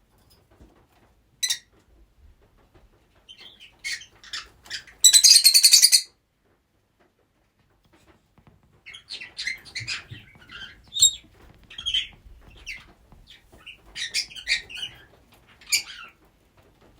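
Pet rosy-faced lovebirds calling: one sharp call about a second and a half in, then a loud burst of rapid, harsh repeated chirps around five seconds in, and after a short pause a long run of chattering chirps and squawks.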